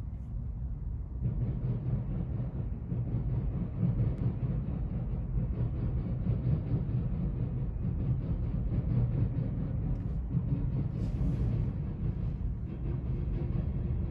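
Four diesel-electric freight locomotives (three GE units, led by a GE AC4460CW, and one EMD SD70ACe) passing and running steadily, a low engine rumble that grows louder about a second in.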